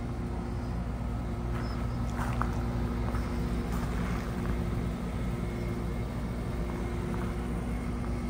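Outdoor air-conditioning unit running with a steady, even hum, with a few faint ticks over it.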